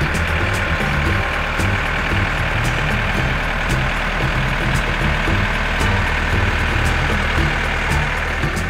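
A tractor engine runs steadily, a rough continuous sound over an uneven low throb.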